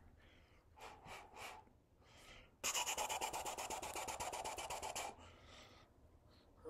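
A few short puffs of breath, then a loud rasping, rapidly pulsing breath noise blown through pressed lips for about two and a half seconds.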